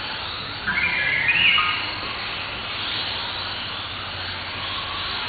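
Small 1/18-scale electric RC cars racing, with a steady high whine of motors and gears. About a second in, a louder whine steps up in pitch for about a second as a car accelerates close by.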